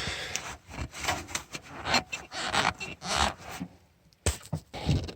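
Spin-on fuel filter being screwed by hand onto its base on a Cummins B3.3 diesel, making a series of irregular rubbing and scraping strokes. There is one sharp knock about four seconds in.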